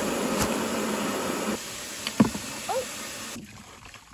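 Water splashing and churning in a plastic tub as hands work in it, loud for the first second and a half and then softer, with a sharp knock about two seconds in.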